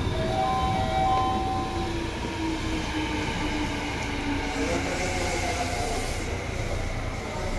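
Seibu 2000 series electric train heard from on board: a steady rumble of wheels and car body with a whine of several steady electric tones from the traction equipment. One tone slides slowly lower through the middle, fitting the growl these cars make while slowing down.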